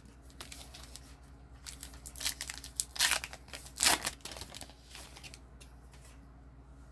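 Trading-card pack wrapper being torn open and crinkled, in a series of short rips and rustles, the loudest about two, three and four seconds in.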